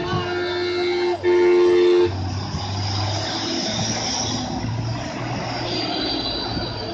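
A two-tone air horn held on, ending in a louder blast that cuts off about two seconds in. Then a Mitsubishi Fuso tanker truck's heavy diesel engine runs as it pulls past.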